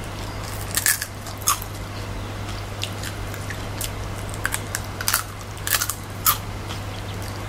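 Crisp crunching bites and chewing on a deep-fried scorpion's crispy legs and shell: irregular sharp crunches every half second to second, over a steady low hum.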